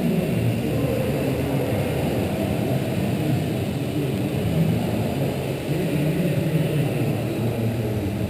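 Hobbyzone Champ RC plane's small electric motor and propeller running, muffled, with a pitch that wavers up and down.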